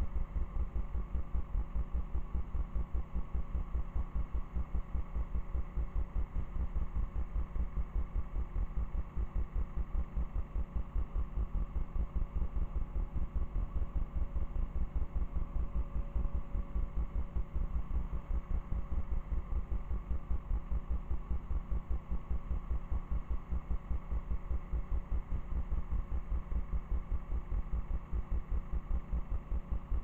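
A small fishing boat's inboard engine running steadily, heard as a rapid, even low throbbing with a faint hum above it.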